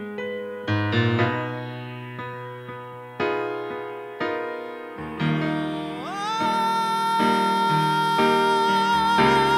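Piano playing slow chords, each struck and left to ring. About six seconds in, a male singer comes in with one long high note held with vibrato over the chords.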